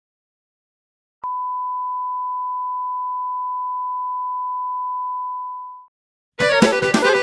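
A single steady electronic beep at one pitch, switched on with a click a little over a second in, held for about four and a half seconds and then fading out. Near the end, music with a regular beat starts.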